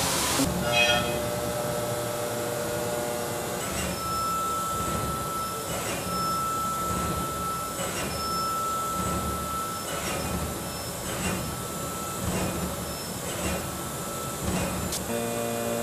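End mill cutting aluminium in a 5-axis CNC milling machine: steady machining noise with a high held whine that breaks off and comes back several times.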